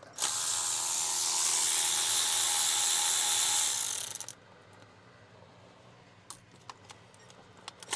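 A power tool with a socket whirring steadily for about four seconds as it spins a bolt out, then stopping, followed by a few light clicks of metal parts.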